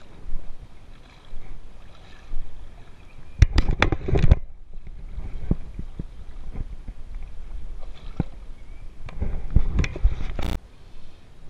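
Water lapping and splashing close to the microphone at the river surface, over a low rumble, with two clusters of sharp knocks and rubs, the louder about three and a half seconds in and another about nine seconds in.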